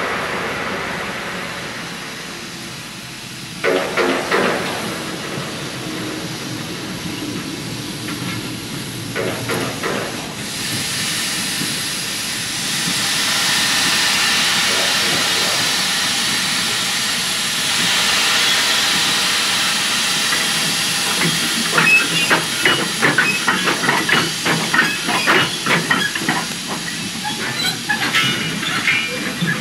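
Steam locomotive venting steam with a steady hiss that swells about twelve seconds in. About two-thirds of the way through, a run of quick, rhythmic chuffs starts over the hiss.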